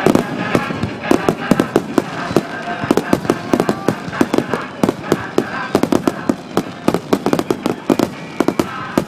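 Fireworks going off in a rapid, irregular string of sharp bangs and crackles, several a second, throughout.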